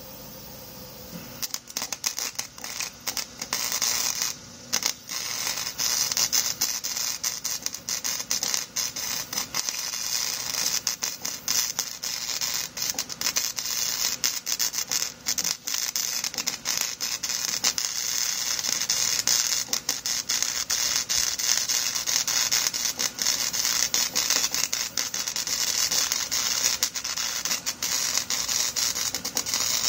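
Electric arc welding on steel angle iron with a Campbell Hausfeld welder: a loud crackling sizzle that starts about a second and a half in. It stops and restarts a few times over the next few seconds, then runs almost without a break.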